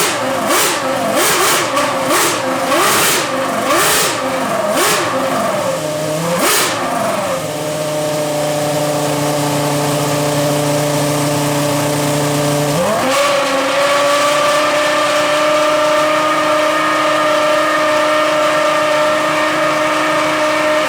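Ferrari Formula One car engine revved in quick throttle blips, about one a second, then held at steady revs and raised to a higher steady note about two-thirds of the way through, before cutting off suddenly at the end.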